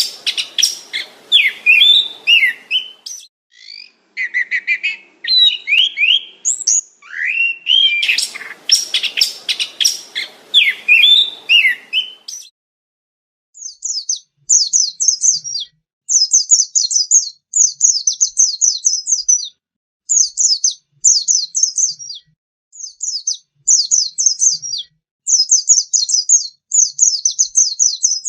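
Songbird singing. For the first half it gives loud, varied phrases of sweeping notes mixed with sharp clicks. From about halfway on it switches to short, rapid, high trills, repeated roughly once a second with brief pauses between.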